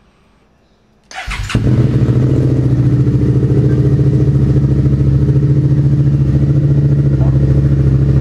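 Suzuki SV650's V-twin engine cold-started through a replica MIVV slip-on exhaust with the dB killer removed and the catalytic converter deleted. The starter cranks briefly about a second in, then the engine catches and settles into a loud, steady idle.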